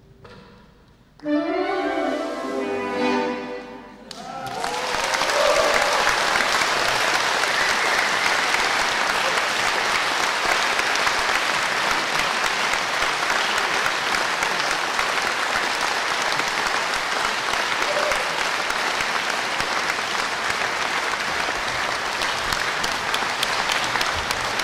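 Saxophones play a brief closing phrase of a few notes about a second in; from about four seconds in, an audience applauds steadily.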